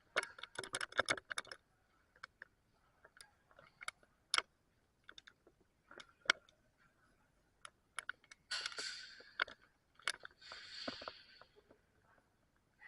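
Airsoft guns firing: a quick run of sharp snaps in the first second and a half, then scattered single shots. Two short rustling noises come about two-thirds of the way through.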